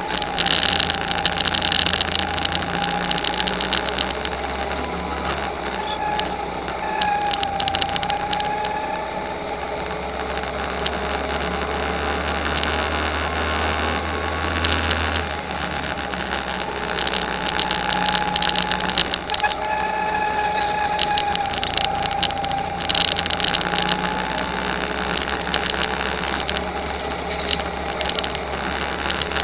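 Go-kart engine running steadily under throttle, heard from a camera mounted on the kart, its pitch gliding gently up and down through the corners. Clusters of short crackles and rattles come near the start and again in the second half.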